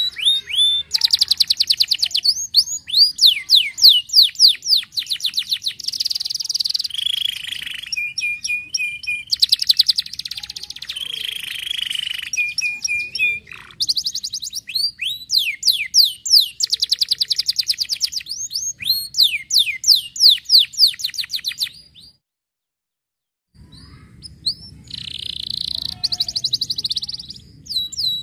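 Domestic canary singing a long, high-pitched song of fast trills and rapid runs of rising and falling notes. The song breaks off completely for about a second and a half near the end, then resumes.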